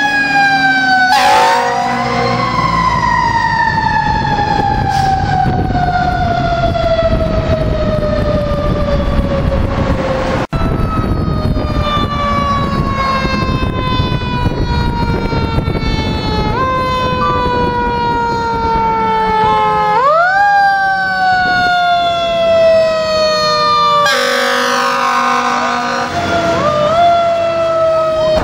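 A fire engine's mechanical siren, wound up again and again. Each time it rises quickly, then slowly winds down in pitch over several seconds. The truck's engine rumbles low under it.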